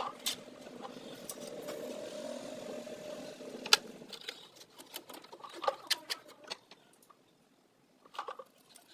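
A steady mechanical hum that stops about four seconds in, with scattered sharp clicks and taps before and after it.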